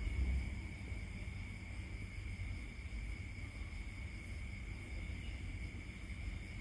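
Quiet background ambience: a steady high-pitched drone over a low rumble.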